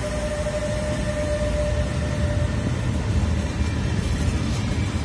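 Freight train passing close by: a Traxx E186 electric locomotive and then a rake of open box wagons, with a steady rumble and clatter of wheels on the rails. A steady whine runs over it and stops about two seconds in.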